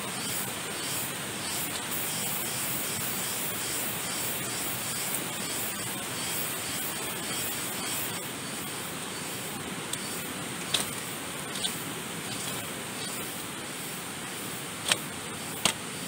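A river rushing steadily, with four short sharp clicks or knocks in the second half.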